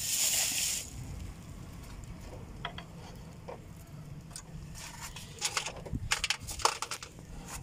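Small metal clicks and clinks of drum-brake shoe hardware (shoe, springs, adjuster) being handled and fitted on the backing plate, with a short hiss at the start and a quick run of clicks near the end.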